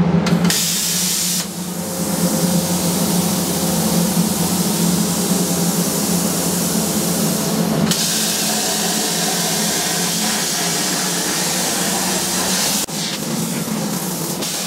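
CNC plasma cutter cutting 2 mm steel plate: a loud, steady hiss of the arc and air jet over a low hum. The sound drops abruptly near the end, leaving a quieter hiss.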